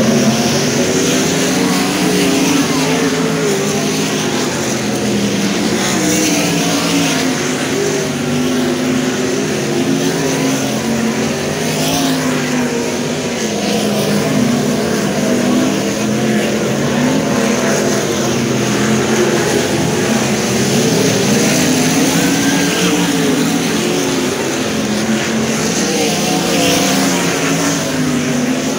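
A field of 410 winged sprint cars running laps on a dirt oval, several V8 engines overlapping and rising and falling in pitch as the cars go through the turns and down the straights.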